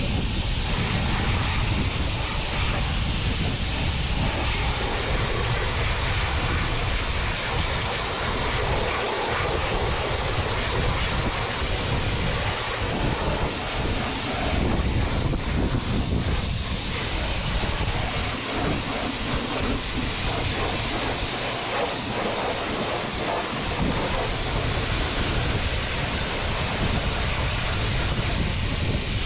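High-pressure washer spraying water onto farm machinery: a steady hiss of the water jet over the running pump.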